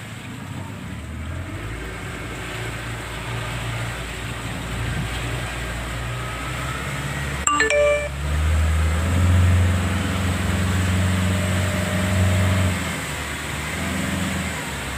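Fishing boat's engine running steadily, then louder with a deeper steady hum for several seconds from about eight seconds in. A short ringing ding sounds just before the engine gets louder.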